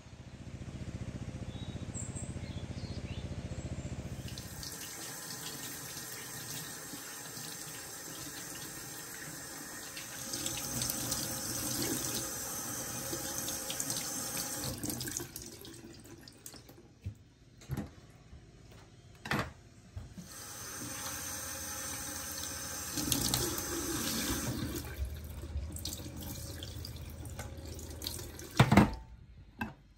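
Kitchen tap running into a stainless steel sink, the water splashing over a whole raw chicken as it is rinsed by hand, and later over barberries rinsed in a bowl. The water noise drops away for a few seconds in the middle, with a few sharp knocks, and there is a brief loud knock near the end.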